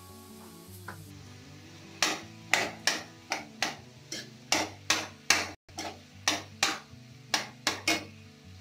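A metal spoon knocks and scrapes against a metal kadhai as it stirs khoya into grated carrots. The sharp knocks start about two seconds in and come about three a second until near the end, with background music underneath.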